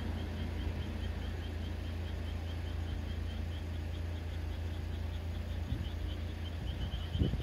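Outdoor night ambience: a steady low rumble with a small creature's short high chirp repeating about three times a second, and a couple of knocks near the end.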